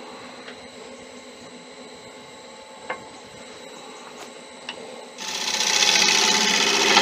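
Wood lathe running with the bowl spinning and no cut being taken: a faint, steady motor hum with a few light clicks. About five seconds in, a much louder, dense sound swells up and takes over.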